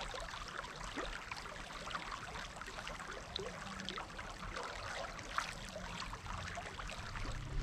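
Shallow river water flowing and trickling, a steady babble of many small splashes.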